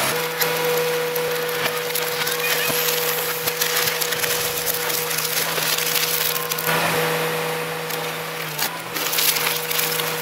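Car crusher pressing down on a scrap car: continuous cracking and crunching of breaking metal, plastic and glass over the machine's steady hum.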